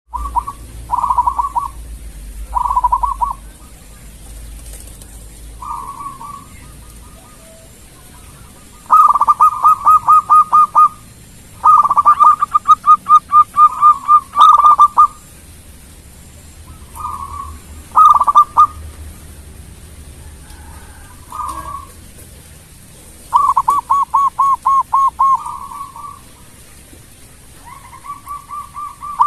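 Zebra dove (perkutut) cooing: about ten bubbling, trilled phrases, each a quick run of rapid rolling notes lasting from under a second to about three seconds, repeated with short pauses between.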